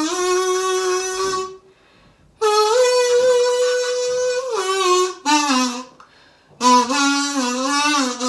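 Kazoo played as a short hummed tune: buzzy held notes that slide between pitches, in a few phrases with brief breaks about a second and a half in and around six seconds in.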